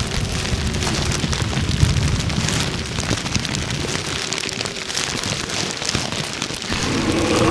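Foley crackling of a burning fire: a dense, steady patter of small crackles, with a low rumble underneath in the first half.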